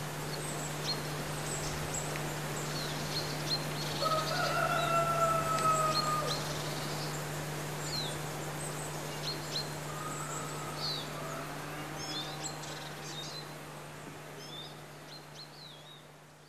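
Small birds chirping, short high calls scattered throughout, over a steady low hum. A longer call, slightly falling in pitch, sounds about four to six seconds in. The sound fades out near the end.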